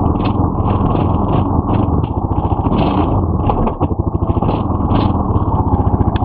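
Four-wheel-drive ATV engine running steadily just after being started, with a fast, even firing pulse; the sound briefly dips about four seconds in.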